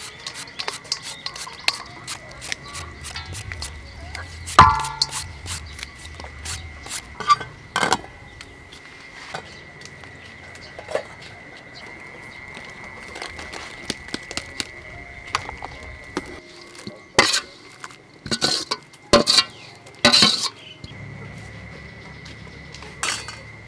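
Food-prep and cookware sounds: a knife shredding green mango over a steel bowl, then a metal ladle clinking and knocking against a steel pot. There are scattered clicks throughout and several sharp clanks near the end, over a steady high tone.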